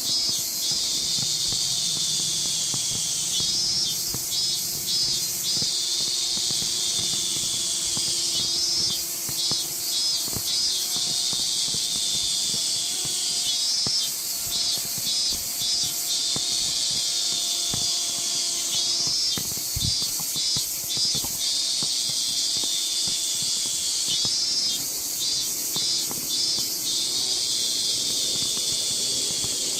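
Cicadas singing in a high, shrill chorus, with a pulsing phrase that repeats about every five seconds over a continuous hiss, and a faint steady hum underneath.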